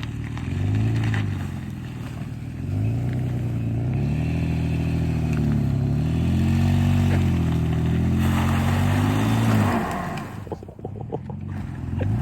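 Pickup truck engine revving up and down over and over as the truck tries to force its way through about three feet of snow, getting stuck. Near the end the revving dies down, leaving some crunching clatter.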